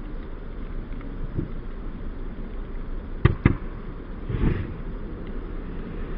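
An Xbox One console, packed with gasoline, gun caps and an aerosol can, burning after an overvoltage blast: a steady rush of fire noise with two sharp pops close together a little over three seconds in, and a softer burst about a second later.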